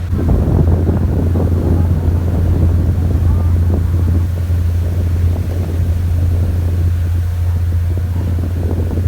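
An engine droning steadily at a low pitch, with wind buffeting the microphone, stronger in the first few seconds.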